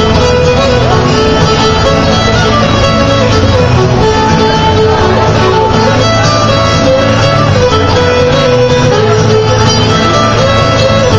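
Fiddle playing a tune at contest pace, with acoustic guitar strumming rhythm backup underneath.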